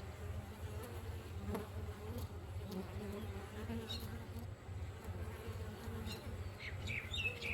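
Honeybees buzzing in a steady, flickering low hum, with a few short high chirps near the end.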